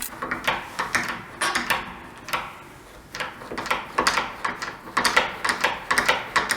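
Door lock being worked over and over, its latch and mechanism clicking and clacking with no squeak, freshly lubricated with WD-40. The clicks are sparse at first and come quickly one after another from about four seconds in.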